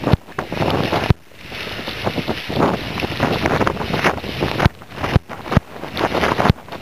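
Storm wind buffeting the microphone, a loud uneven rush that cuts out abruptly several times, with a few sharp knocks as the sled jolts over the snow.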